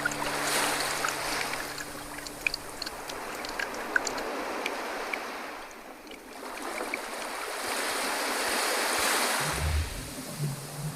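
Water washing in slow swells, rising and fading twice, with scattered small clicks.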